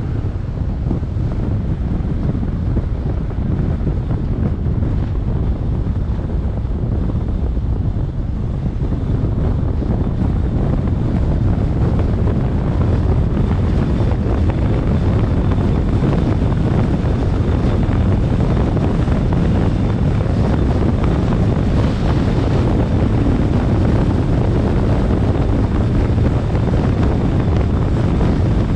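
Wind buffeting the microphone over the road noise of a car driving at steady speed: a continuous low rush with no distinct events.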